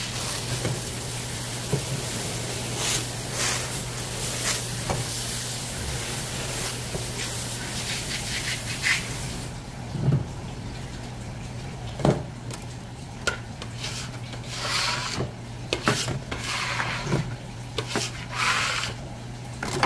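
Water running from a tap, shut off about nine seconds in, then scattered knocks and short scrapes on a wooden cutting board over a steady low hum.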